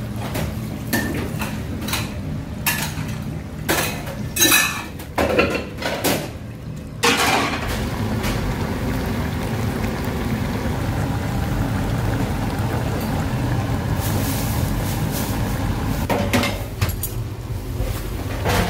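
Metal pans, trays and utensils clattering and clinking in a restaurant kitchen for the first several seconds. Then a steady hiss of a pan of braised cutlassfish boiling on a gas burner, with more clinks near the end.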